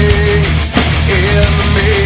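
Loud heavy rock music with distorted guitar and a driving drum beat.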